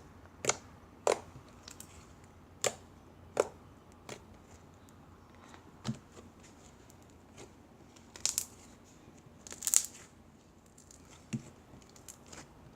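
Glitter glue slime being handled and stretched, giving off a dozen or so irregular sharp sticky clicks and pops, with a couple of louder snaps near the end.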